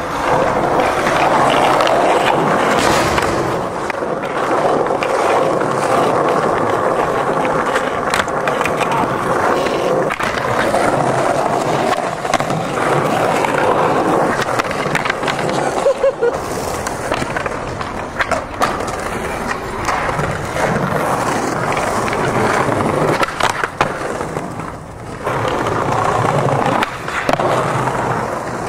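Skateboard wheels rolling over stone paving tiles with a steady rolling noise, broken several times by sharp clacks of the board.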